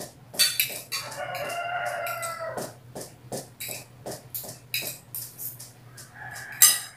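A rooster crowing once, one long call of about a second and a half, starting about a second in. Spoons and forks clink against glass plates throughout, with a sharp clink near the end.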